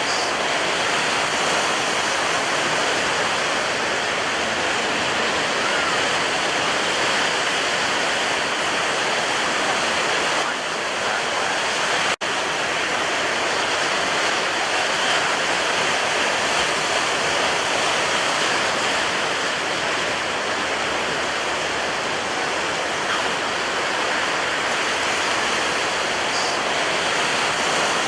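Ocean surf: a steady, even rush of water with no distinct rise and fall of separate waves. The sound cuts out for an instant about twelve seconds in.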